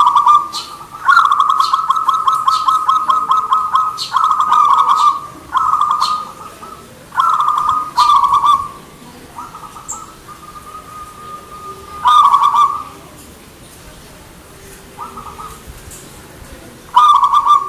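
Zebra dove (perkutut) cooing: a string of rapid, trilled coo phrases, the longest starting about a second in, followed by several shorter phrases. The calls thin out to a brief pause in the later part before another phrase near the end.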